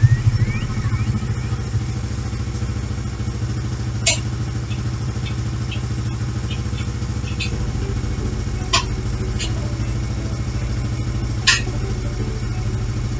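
An engine idling steadily, a low hum with a fast even pulse, with four sharp clicks over it.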